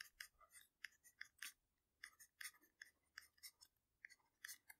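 Faint, quick ticks and scratches of a stylus writing on a tablet screen, about three small taps a second.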